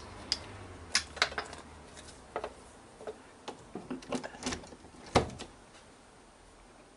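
Scattered light clicks and knocks from hands handling a power cable and the drive belt on a metal lathe headstock, with the loudest knock about five seconds in.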